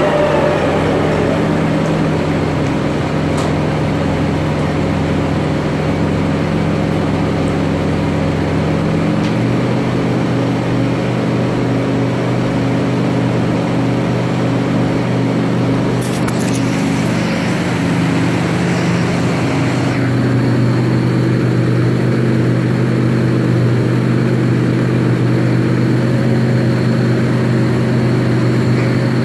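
Subaru EZ30 3.0-litre flat-six running in a Factory Five 818 on a chassis dyno. It winds down at the start, then runs steadily, its note shifting about 9 seconds in and again about 20 seconds in.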